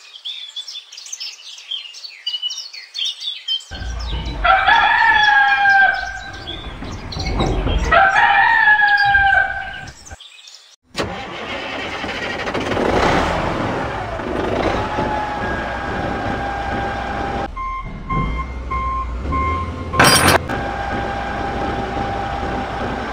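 Small birds chirping, then a rooster crowing twice. After a brief break, a vehicle engine runs steadily to the end, with a sharp click about twenty seconds in.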